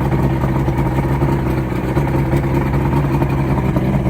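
Boat motor running at a steady idle, which the owner judges to sound good.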